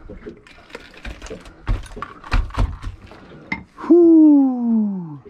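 Scattered knocks and clicks of tackle being handled as a hook is worked out of a halibut's mouth with pliers. Near the end comes a loud tone that slides steadily down in pitch for just over a second.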